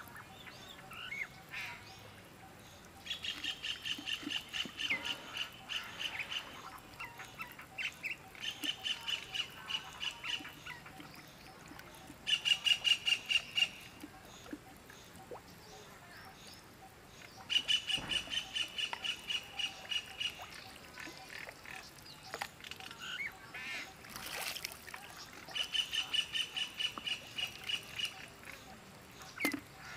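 A bird calling in bouts of rapid, repeated chattering notes, about five runs of two to three seconds each; the loudest run comes about twelve seconds in.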